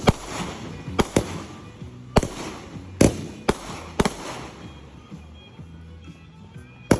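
Consumer fireworks going off: a string of sharp bangs, several close together in the first four seconds, then a lull and one more bang near the end.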